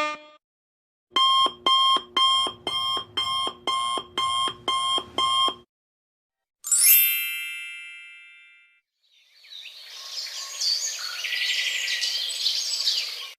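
Alarm clock sound effect: a rapid run of about ten electronic beeps, two or three a second. Then comes a single chime that rings and dies away over about two seconds, and then a hissy, chattering sound effect.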